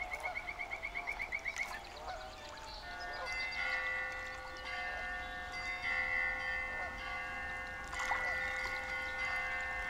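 Soft background music of sustained, chime-like chords that change a couple of times. A rapid bird trill runs for about the first second and a half, with a few short bird chirps scattered through.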